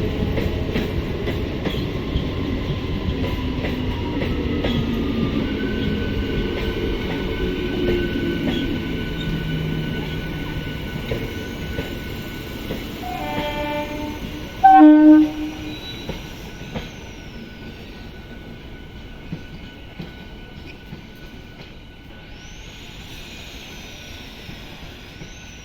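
ICF Medha EMU local train running past, its noise slowly fading as it moves away. About halfway through a horn sounds, with one short loud blast.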